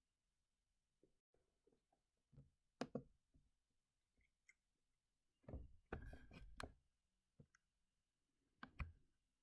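Near silence broken by a few faint clicks and knocks: one about three seconds in, a short flurry around six seconds, and a pair near the end.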